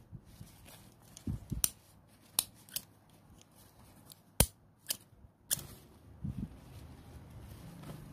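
Small plastic stapler clicking shut several times on folded tissue paper, with paper rustling between the clicks; the sharpest click comes a little after halfway.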